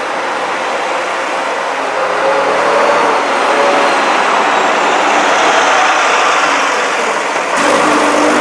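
Vintage single-deck bus's diesel engine pulling away and driving past, growing louder about two seconds in. The engine note shifts abruptly near the end as the bus moves off down the street.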